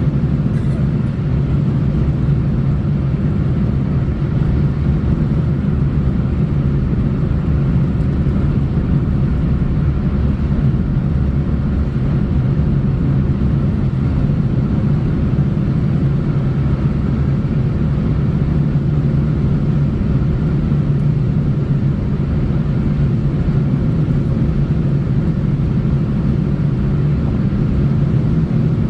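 Car driving along a road: a steady low rumble of road and engine noise that holds even throughout.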